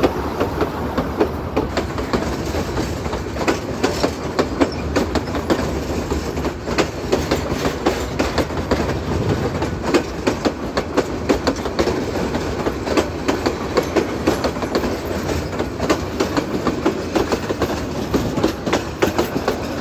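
Passenger coaches of an express train rolling past close by: a steady rumble of wheels on rail, with a rapid, irregular clickety-clack of wheels over rail joints.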